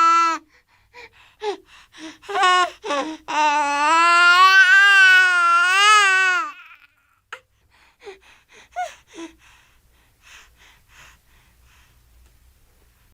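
Animated toddler character crying. A long wail breaks off, then come short gasping sobs and a second long, wavering wail about three seconds in; it tails off into faint sniffles and whimpers.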